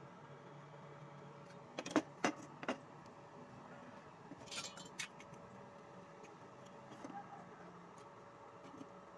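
Steel angle-iron pieces and a steel square handled on a table: a few light metallic clicks about two seconds in, a brief scrape a little later, and small taps near the end, over a faint steady hum.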